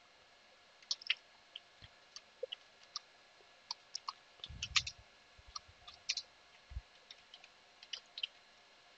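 Computer keyboard keys clicking as a terminal command is typed: faint, slow, irregular keystrokes, with a soft low thump about halfway through.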